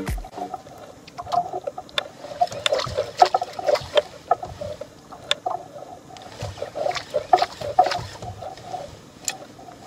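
Water lapping against the hull of a small outrigger boat, with many irregular light knocks and clicks from a spinning reel and rod being worked to jig a metal lure.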